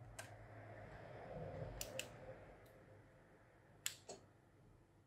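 Faint handling noise of small tools and phone parts: a soft rustle for the first few seconds with about five short sharp clicks, the loudest nearly four seconds in.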